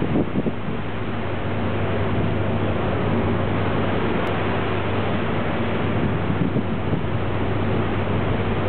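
Steady rush of wind and sea water from the deck of a moving ferry, with the ship's engines humming low and steady underneath and wind buffeting the microphone.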